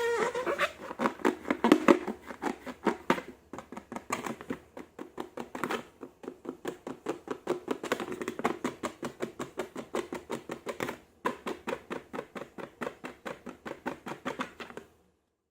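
Slime being squished and kneaded by hand, a quick run of small sticky squelches and clicks at about five a second that stops abruptly near the end.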